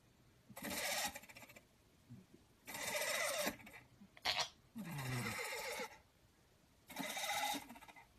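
Motor of an automatic rotating cat teaser toy whirring in repeated bursts of about a second, with short gaps, as it swings its feather wand around.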